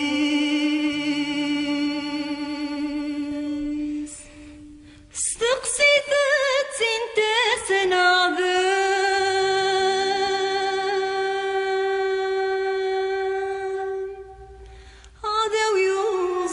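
A male singer performing a Kabyle song, drawing out long, slow notes with a wavering ornament. The voice breaks off twice, about four and fourteen seconds in, before coming back in.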